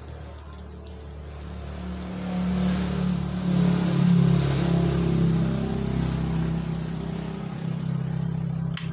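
A motor vehicle's engine running nearby, a steady low hum that grows louder about two seconds in, peaks near the middle and slowly fades. One sharp click comes near the end.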